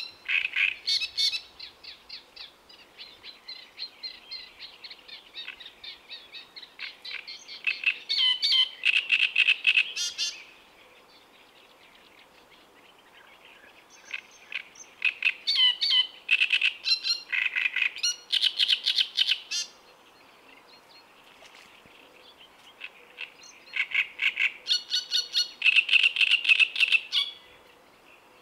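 Great reed warbler singing: three bouts of fast, rhythmic, harsh repeated notes, with pauses of a few seconds between them.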